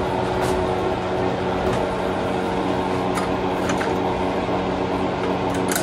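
Steady electric hum with a few faint clicks from hand work at the drill press.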